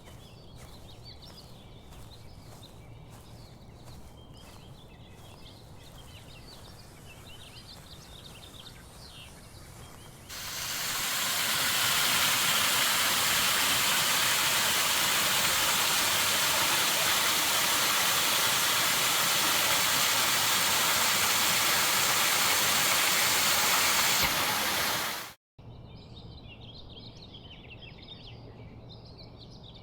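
Birds chirping over a low hum, then, from about ten seconds in, a waterfall's loud steady rushing of water for some fifteen seconds, ending abruptly, after which the birdsong returns.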